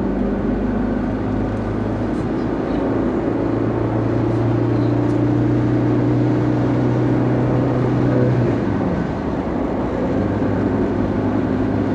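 Vehicle engine running steadily while driving along a road, with road and wind noise. The engine note rises about three seconds in and falls back about eight seconds in.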